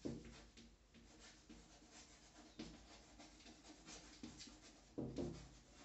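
Chalk writing on a blackboard: faint, irregular scratches and taps of the chalk as a word is written.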